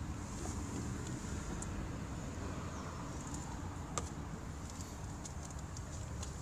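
Steady low outdoor rumble with a faint high hiss, and a few light plastic clicks and taps from the cabin air filter holder and filter being handled, the sharpest about four seconds in and a few more near the end.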